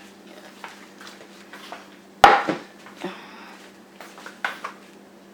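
Dishes and cutlery being handled on a kitchen counter: scattered light clicks and knocks, with one loud ringing clatter about two seconds in.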